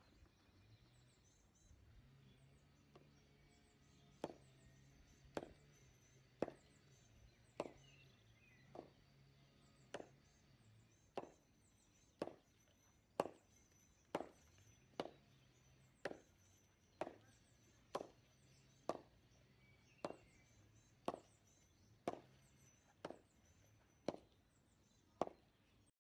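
Cricket bat striking a cricket ball tied in a sock and hung on a rope, over and over. There is a sharp knock about once a second, some twenty strikes, beginning a few seconds in.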